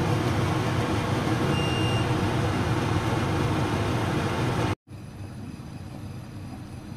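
Pot of soup at a full rolling boil on an induction hob, a steady rushing bubble. About two-thirds of the way in the sound breaks off for an instant and comes back quieter and still steady.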